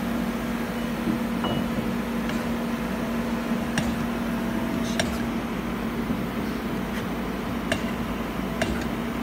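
CNC lathe standing idle with its spindle stopped, giving a steady low hum. About half a dozen short, sharp metallic clicks are scattered through it.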